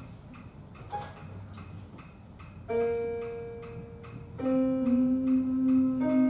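Women's a cappella group starting to sing: one held note enters about two and a half seconds in, then more voices join on long held notes, building a chord. A soft ticking about three times a second runs underneath.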